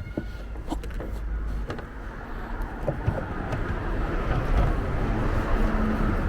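A car passing on the road, its engine and tyre noise swelling and then easing off, with a few light clicks near the start.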